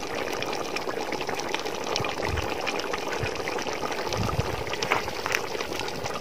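Chicken masala bubbling as it simmers in a large pot over a wood fire, a steady sizzle with scattered small pops as the liquid cooks down.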